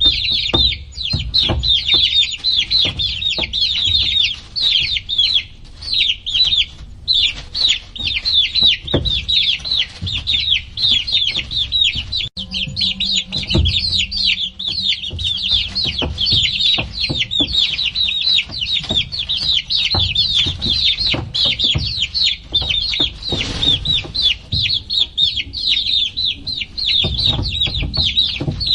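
A flock of baby chicks peeping nonstop, a dense chorus of short, high chirps that each slide downward. Scattered low thumps sound underneath.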